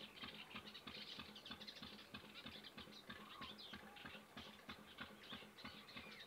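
Near silence with many faint, irregular ticks, several a second, and a few faint short chirps.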